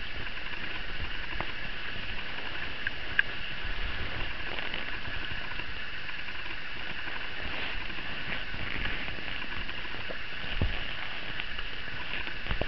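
Steady background hiss with occasional soft thumps and small clicks as a kitten scuffles and rolls in a knitted blanket.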